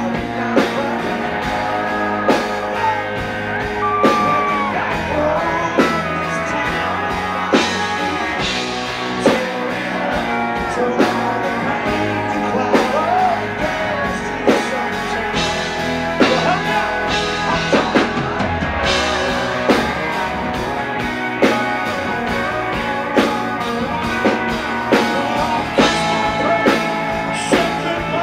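Live country band playing with a man singing over it: electric guitars, bass guitar and a drum kit keeping a steady beat.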